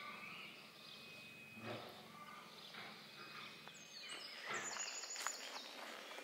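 Faint outdoor ambience with a few short bird chirps; the background noise changes about two-thirds of the way through.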